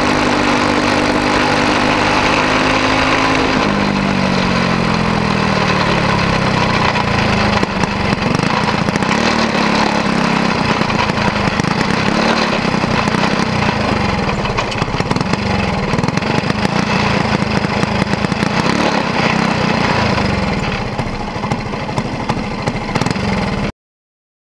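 Onboard sound of a caged racing kart's small single-cylinder engine, running at a steady high speed, then dropping in pitch about four seconds in as the kart slows and runs unevenly at low speed. The sound cuts off abruptly near the end.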